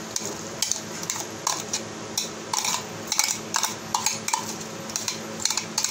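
Metal spoon clinking and scraping against glass bowls as chopped onion is scraped out of one bowl into another, in a string of irregular light clinks.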